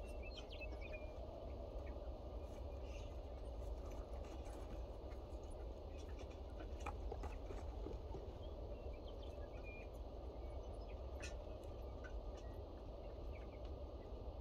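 Farmyard ambience: a steady low rumble with scattered short chirps and calls from birds.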